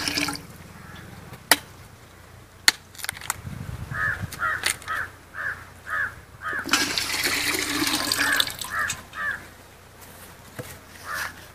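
Coconut water pouring from a cut tender coconut into an aluminium pot, briefly at the start and again for about two seconds in the middle, with two sharp knocks of a machete striking the coconut early on. A bird calls repeatedly in the background, about three calls a second.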